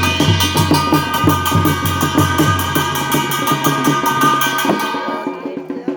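Garhwali jagar music: drums beat a fast, steady rhythm under ringing tones. About five seconds in the drumming drops away, leaving only sparse light taps.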